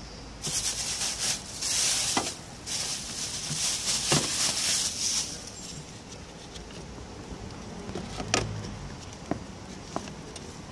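Plastic sheet crinkling and rustling for about five seconds as it is pulled off the engine's intake hose. Then a few light plastic clicks and knocks as the rubber intake hose with its metal clamp is pushed onto the Bosch mass airflow sensor housing.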